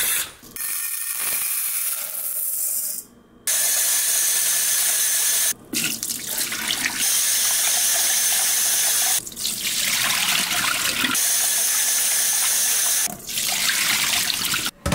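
Kitchen tap water running into a rice cooker's inner pot in a stainless steel sink as rice is rinsed, the cloudy rinse water poured off down the drain. The running water breaks off briefly a few times.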